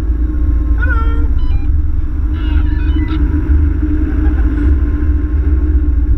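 Land Rover Tomcat on the move, a steady low rumble of its engine and road noise.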